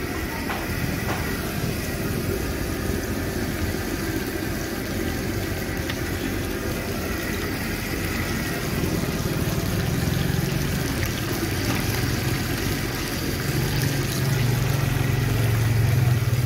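A motor vehicle engine running close by over a steady noisy background. Its low hum grows louder about nine seconds in and again near the end.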